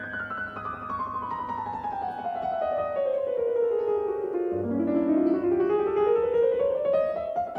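Piano music: a long run of quick notes descending steadily in pitch, turning about four and a half seconds in and climbing back up.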